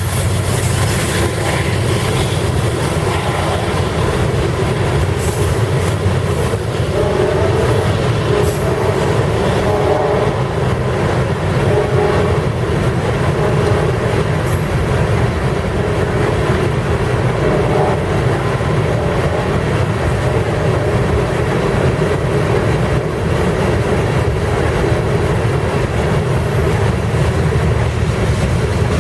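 Cars of a loaded rock train rolling past, a steady rumble with steel wheels clacking over the rail joints.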